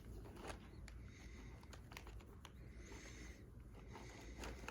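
Faint handling sounds: scattered light clicks and two short stretches of soft rustling, about a second in and about three seconds in.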